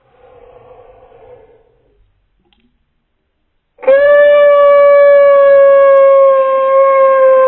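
A person's loud, long held vocal cry played back in slow motion, starting about four seconds in and holding one steady pitch. Before it there is a faint, muffled murmur.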